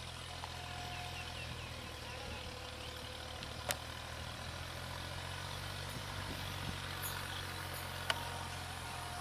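Distant WAG-7 electric freight locomotive approaching, heard as a steady low hum. Two short sharp clicks stand out, one about a third of the way in and one near the end.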